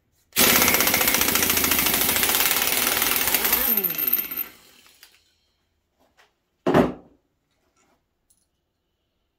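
Pneumatic impact wrench hammering for about three seconds on the 24 mm flywheel nut of a Yamaha Enticer 340 engine, with no hold on the flywheel. Its whine falls as it spins down after the trigger is released. A single short knock follows a few seconds later.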